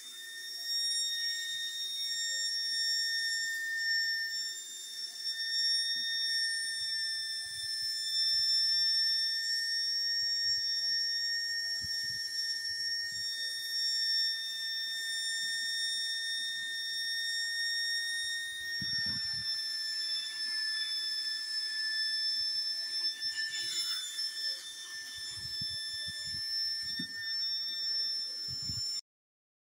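Small 12 V DC cooling fan running on load: a steady high-pitched whine with overtones that drops slightly in pitch about two-thirds of the way through, with a few low handling bumps.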